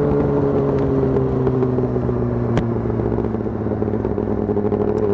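Yamaha YZF R6's inline-four engine running at a steady cruise, heard from the rider's seat. Its pitch sinks slightly as the throttle eases and climbs again near the end, with one sharp click about halfway.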